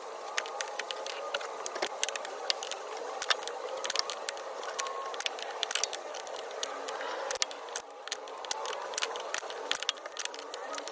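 Metal wrench clicking and scraping against the clutch master cylinder's hydraulic line fitting as it is worked loose, in many small irregular metallic ticks.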